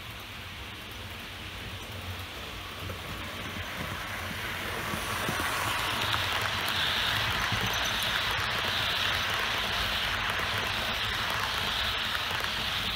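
Model passenger train, hauled by a Roco Vectron locomotive, rolling past close by on model track: a steady rushing rattle of wheels on rails that swells from about five seconds in as the coaches pass.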